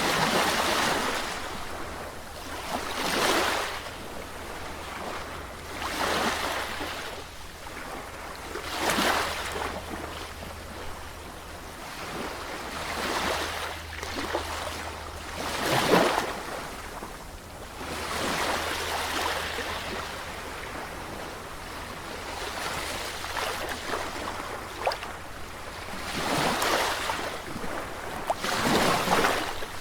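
Sea waves breaking and washing ashore in repeated surges, roughly every three seconds; the strongest comes about halfway through. A steady low rumble runs underneath.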